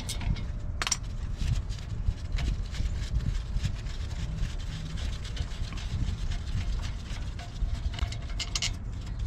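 Scattered metallic clicks and scraping from a socket wrench and the brake caliper bolts being worked loose on a front brake, over a steady low rumble. A denser run of clicks comes near the end.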